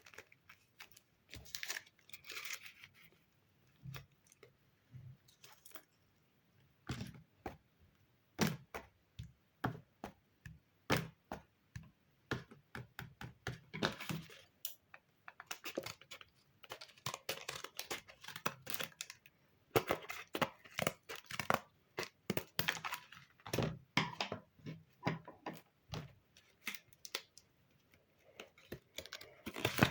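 Paper crafting by hand: scissors snipping, paper or tape tearing and paper crinkling, with many irregular sharp clicks and taps between short rustling swishes.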